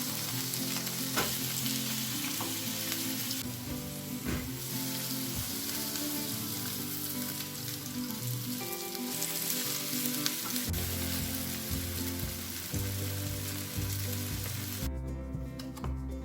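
Food sizzling as it fries in a hot pan, with a few sharp utensil clicks; the sizzle cuts off suddenly near the end. Soft background music plays underneath.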